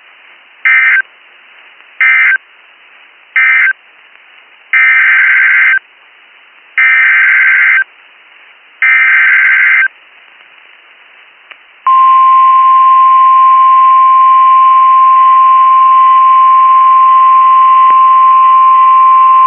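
NOAA Weather Radio EAS (SAME) data bursts. Three short bursts mark the end of one warning, and three longer bursts are the header of the next. About 12 seconds in, the steady single-pitched weather radio warning alarm tone starts and holds.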